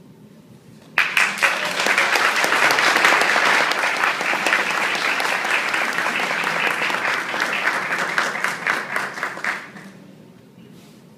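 Audience applauding, starting suddenly about a second in and fading out near the end.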